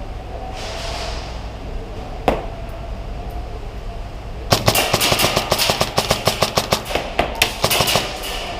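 Airsoft gunfire: a single sharp crack, then about two seconds later a long run of rapid cracks lasting nearly four seconds.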